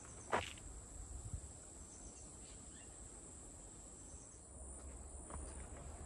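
Steady high-pitched drone of forest insects, with a footstep on the trail about a third of a second in and another faint step near the end.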